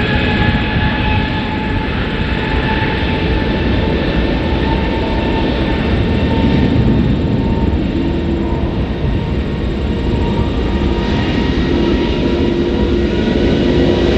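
Jet airliner engines running close by: a steady roar with a high whine of several held tones, with lower tones joining about eight seconds in.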